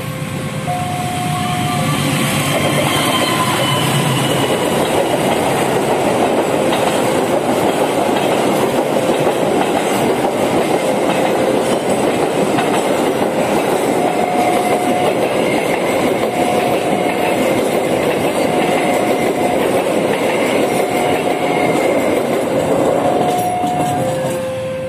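A passenger train hauled by a CC206 diesel-electric locomotive passing close by, with a steady loud rumble and wheel clickety-clack over the rails. A level-crossing warning alarm sounds throughout in alternating low and high tones.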